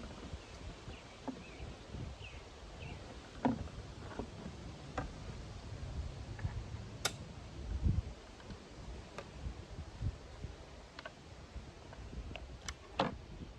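Scattered metal clicks and knocks from a Schmidt-Rubin 96/11 rifle's parts being handled and fitted back together, about a dozen spread over several seconds, over a low rumble.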